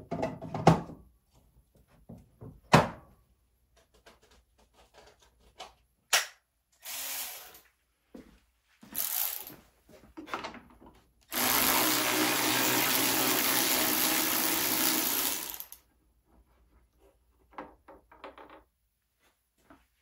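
Cordless drill with a socket, given a few short trigger pulls and then run steadily for about four seconds, backing out a 10 mm bolt from a scooter's front leg shield. A couple of sharp clicks come near the start.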